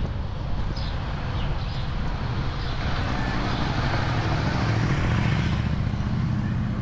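Toyota RAV4 driving slowly through town streets: steady engine hum and tyre noise. A rush of noise swells about three seconds in and eases off shortly before the end.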